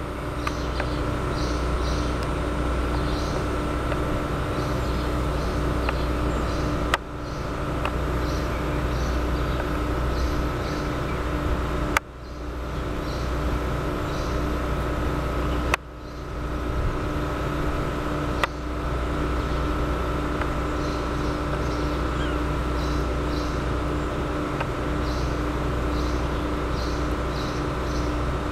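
Steady low background hum with a couple of faint steady tones, and short high chirps repeating in little runs. Four sharp clicks, three of them followed by a sudden dip in loudness that climbs back over a second or two.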